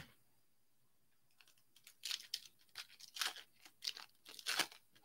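A foil trading-card pack wrapper being torn open and crinkled by hand, in a run of short tearing rustles lasting about three seconds, the loudest near the end. A single sharp tap comes right at the start.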